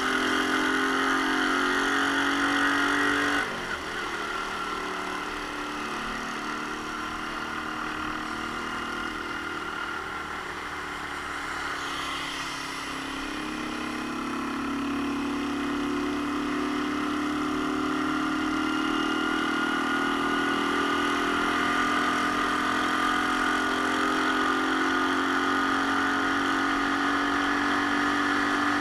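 Romet Ogar Caffe 125's 125 cc single-cylinder engine running under way. Its note drops suddenly about three and a half seconds in, stays low, then climbs steadily through the second half as the bike accelerates, over a steady rushing noise.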